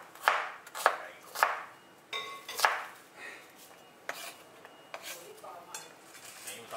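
Kitchen knife chopping red onion on a wooden cutting board: four sharp chops about half a second apart, then softer, lighter knocks as the diced onion is gathered together.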